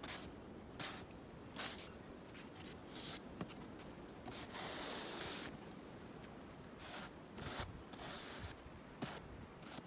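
Snow crunching and scraping in a string of short strokes, one every second or so, with one longer scrape about halfway through.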